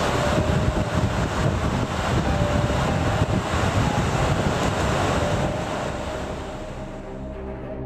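Steady rushing noise of wind and sea surf, with wind buffeting the microphone, dying down near the end.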